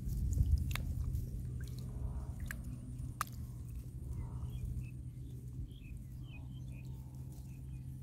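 Scattered small clicks and rustles of leafy twigs shaken by a baby monkey climbing in a shrub, over a steady low rumble, with a few faint high chirps toward the middle.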